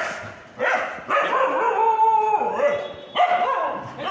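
A dog barking several times, with one longer drawn-out howling call in the middle that drops in pitch at its end.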